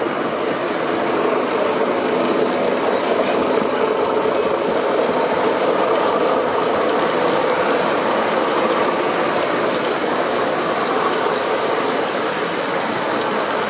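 O gauge model goods trains running past on the layout's track: a steady rolling rumble of wagon wheels on rail, with faint high ticks over it.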